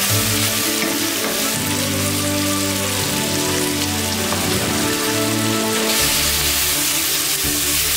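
Sliced onion and green onion sizzling steadily in hot oil in a wok as they are stir-fried with a wooden spatula. Background music with a changing bass line plays underneath.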